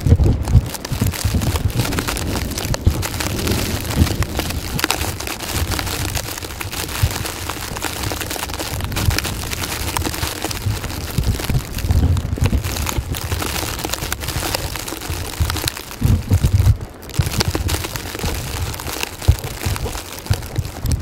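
Blizzard wind gusting, buffeting the microphone with an uneven low rumble over a steady hiss of blowing snow.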